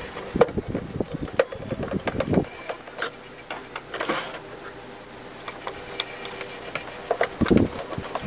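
Screwdriver driving screws back into the side of an Epson L3110 printer's plastic casing: a run of irregular clicks and ticks, with a louder cluster near the end.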